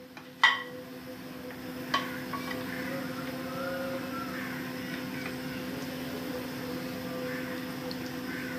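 Gulab jamun frying in hot oil, a steady sizzle over a steady low hum. A plastic spatula knocks against the pan about half a second in and again at about two seconds.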